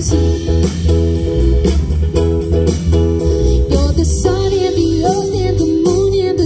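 Live band playing: acoustic guitar, electric guitar, bass guitar and drums, with a woman's lead vocal carrying the melody from about four seconds in.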